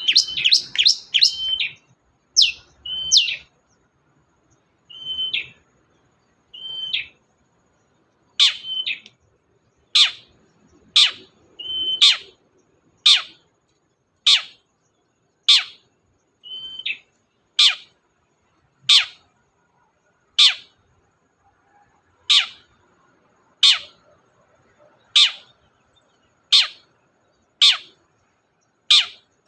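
Long-tailed shrike (cendet) calling. A quick run of chattering notes opens, then short clipped notes, then a long series of sharp, downward-sweeping single calls repeated about every second and a half.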